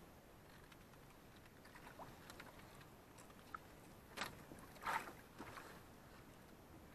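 Nylon fishing handline being hauled in by hand over the side of an outrigger canoe: a few small ticks, then two louder short swishes about four and five seconds in, over a faint steady hiss.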